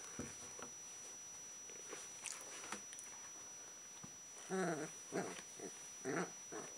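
Alaskan Malamute puppies play-fighting: a few faint scuffles and clicks, then from about four and a half seconds in a quick series of short puppy play-growls.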